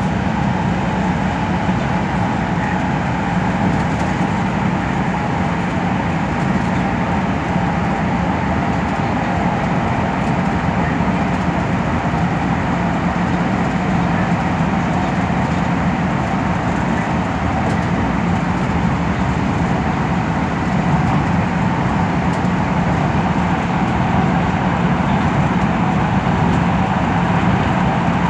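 Express bus cruising steadily, heard from inside the cabin: an even drone of engine and road noise with a constant low hum, unchanging throughout.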